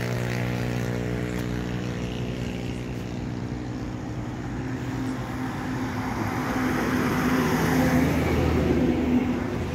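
A vehicle engine running at a steady idle, with the noise of passing traffic building and growing louder toward the end.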